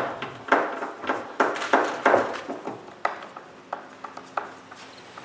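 A series of light, irregular knocks and clicks as metal cabinet hardware is handled and fitted against wood, louder in the first half and fainter toward the end.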